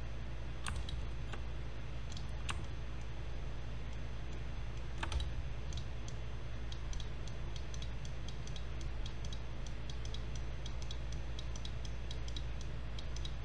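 Clicks of a computer mouse and keyboard keys as a 3D model is edited: a few scattered clicks at first, then frequent quick clicks through the second half, over a steady low hum.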